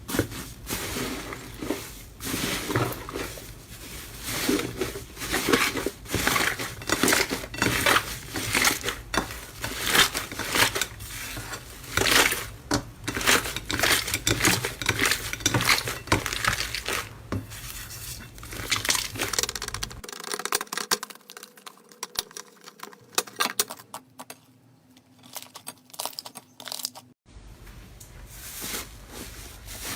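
Slime being squeezed, stretched and torn by hand, giving dense, fast crackling and popping. About two-thirds of the way through it turns quieter and sparser for several seconds, then the crackling returns near the end.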